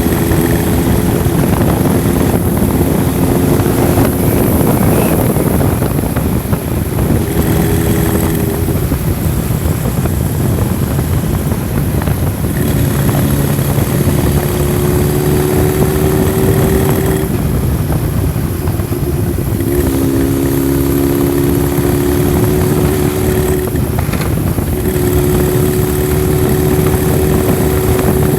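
Honda CB1000SF's inline-four engine running while the bike is ridden. A steady engine note holds for several seconds at a time, fades briefly every few seconds and comes back, once rising gently, over a constant low rumble.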